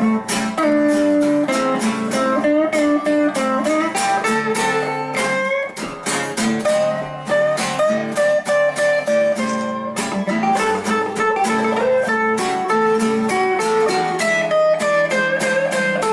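Two guitars, one of them electric, playing an instrumental passage together: strummed chords in a steady rhythm, with a single-note melody line over them.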